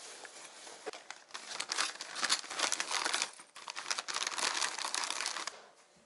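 Plastic snack pouches crinkling and rustling as they are stuffed into a canvas tote bag: a dense run of crackles starting about a second in and stopping shortly before the end.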